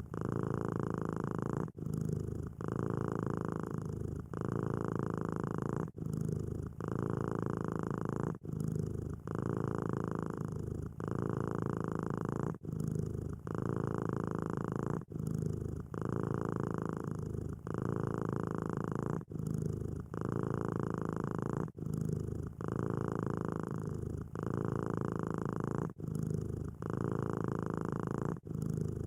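Domestic cat purring steadily, the rumble breaking briefly about every two seconds as it switches between breathing in and breathing out.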